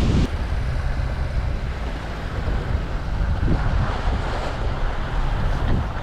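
Wind buffeting the microphone and waves washing, over a low steady engine hum. The heavy wind noise drops suddenly just after the start.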